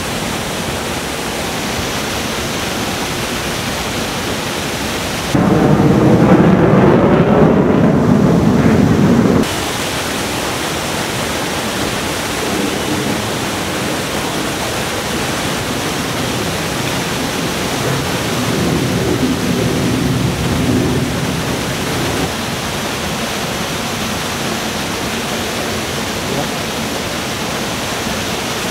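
A steady, loud rushing noise with no distinct events. From about five to nine seconds in, it becomes louder and deeper, starting and stopping abruptly.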